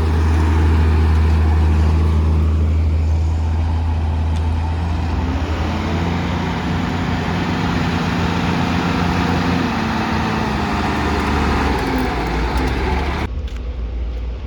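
Heavy diesel engine running steadily, its pitch rising and falling as it is revved up and down. The sound changes abruptly near the end.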